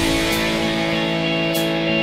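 Instrumental background music with sustained tones and a brief high cymbal-like hiss about one and a half seconds in.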